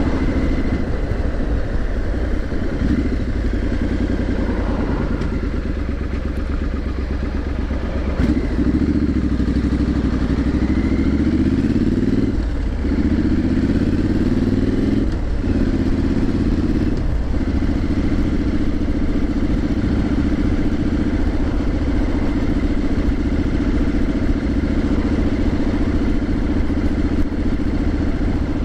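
Triumph Street Scrambler 900's parallel-twin engine running under way, heard from the bike. About eight seconds in it accelerates, the pitch rising and dropping briefly three times as it shifts up through the gears, then settles to a steady cruise.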